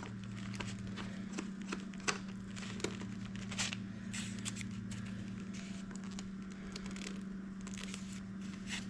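Faint clicks and scrapes of hands unscrewing the threaded collar of a Suzuki DR-Z400 speedometer cable from the back of the speedometer, over a steady low hum.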